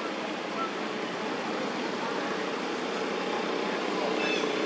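Steady outdoor background noise, an even rushing hiss with no distinct events, and a faint short high call near the end.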